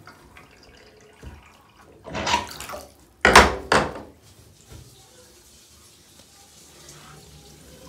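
Bathtub water running out through a newly opened pop-up drain, with two loud splashing swishes of water about two and three seconds in, then a faint steady trickle.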